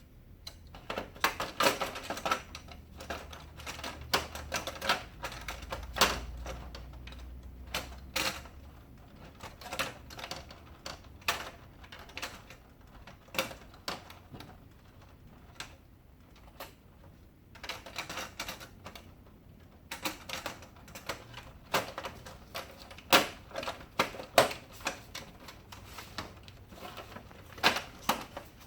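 Plastic covers of an HP LaserJet printer being pressed and snapped back into place: irregular clicks, taps and snaps of plastic panels seating, with a short lull midway.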